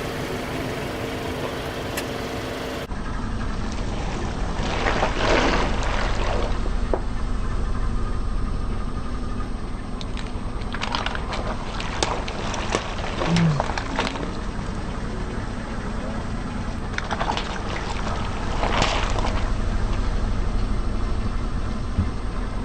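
A car's engine runs steadily while a tyre rolls over and crushes objects, with three bouts of crackling, crunching and popping noise.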